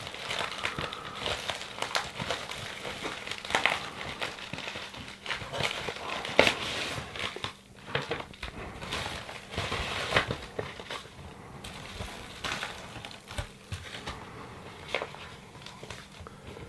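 Packaging being unpacked: paper and cardboard crinkling and rustling in irregular bursts of crackles as a shipping box is opened and its inserts handled.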